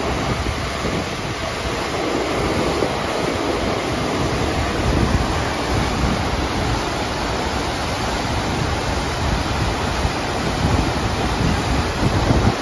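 Steady rush of the FlowRider surf simulator's pumped sheet of water pouring up the wave surface as a flowboarder carves across it, with wind buffeting the microphone.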